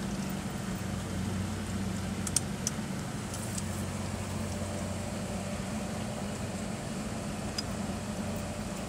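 A steady low machine hum, with two short clicks about two and a half seconds in as the plastic indexing-valve parts are handled.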